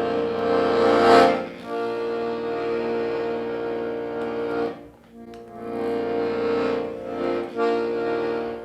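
Hohner Corona III diatonic button accordion in BbEbAb tuning playing held chords over bass notes, swelling about a second in and pausing briefly about halfway before the chords resume.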